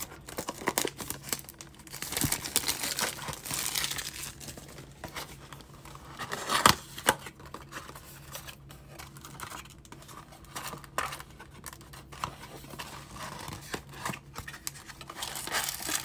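Clear plastic shrink-wrap crinkling and tearing off a small cardboard box of trading cards, then the cardboard box being opened and torn apart by hand. The crackle and rustle keep on throughout, with one loud rip a little before halfway.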